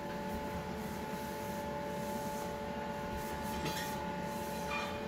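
A cloth rubbing along the chrome rails of a heated towel radiator, with two short squeaky strokes near the end, over a steady background hum.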